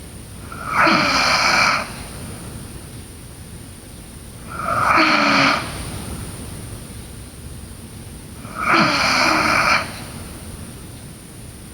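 A sleeping girl snoring: three loud snores about four seconds apart, each lasting about a second.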